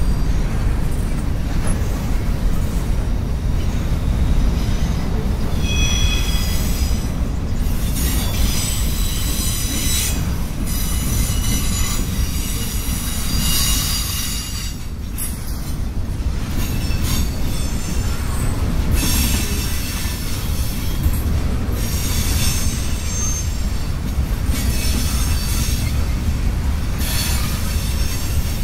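Freight cars of a long CSX mixed freight train rolling past: covered hoppers, boxcars and tank cars. Their wheels make a steady heavy rumble on the rails, with high-pitched wheel squeals that come and go many times.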